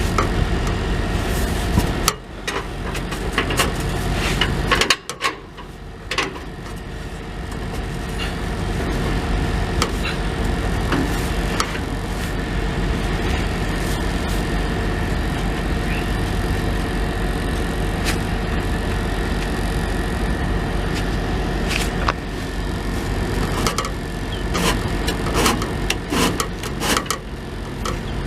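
Steady engine hum, as from an idling truck, with scattered knocks, clicks and scraping from an exhaust flex pipe being worked onto its fitting on a Peterbilt 379; the knocks come more often near the end.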